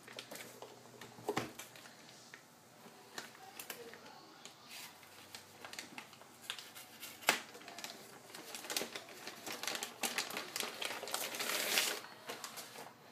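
Clear plastic bag crinkling and crackling as it is slit open and pulled off a metal headphone amplifier, with scattered sharp ticks. The crinkling is loudest for about two seconds near the end, then stops.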